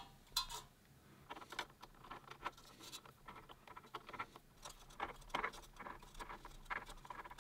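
Faint handling noise from fingers working on a metal dual-tower CPU heatsink in a PC case: a sharper click about half a second in, then a scatter of small ticks and scratches.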